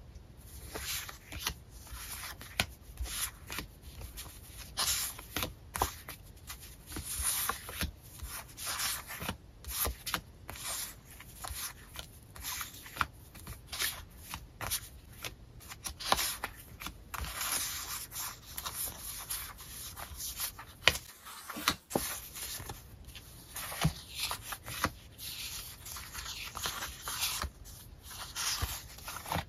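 Paper sticker sheets being handled and sorted by hand: irregular rustling and sliding as sheets are picked up, shuffled through and laid onto stacks, with light taps and flicks as the paper edges meet.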